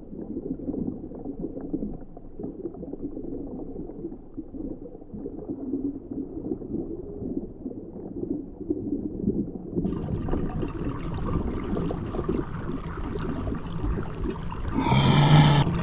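A muffled, low gurgling rumble with a watery character. About ten seconds in it brightens as higher sounds open up, and near the end a steady low tone with overtones swells in.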